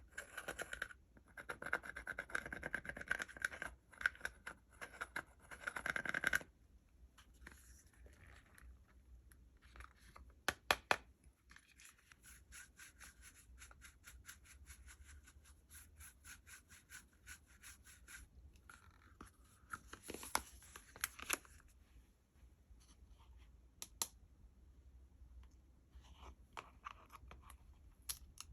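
Slime and the makeup being mixed into it, handled close to the microphone: scratchy scraping for about the first six seconds, then quieter, with runs of quick sticky clicks and a few sharper snaps.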